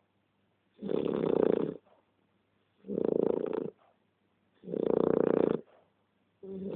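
A sleeping pet snoring, one snore about every two seconds, each lasting about a second: three full snores, and a fourth starts near the end.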